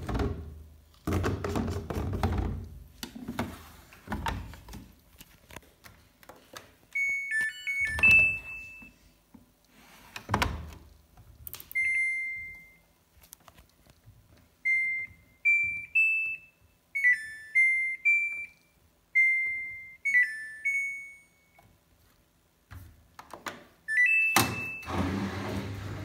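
Samsung washing machine control panel beeping as its program dial is turned and buttons are pressed, short electronic tones, some in quick stepping runs, mixed with knocks from the detergent drawer and handling in the first half. Near the end comes a short rising run of beeps, and the machine then starts running with a steady hum and hiss.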